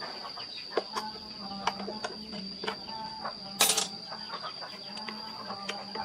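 Irregular light taps and clicks, with a brief hissing scrape about three and a half seconds in, over a steady high whine and a low hum.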